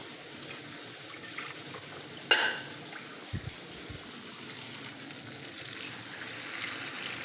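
Water being added to a pan of frying onion masala, with a steady low sizzle. A single ringing metal clank, a utensil against the pot, sounds about two seconds in, followed by a couple of soft knocks. The water keeps the onions from burning.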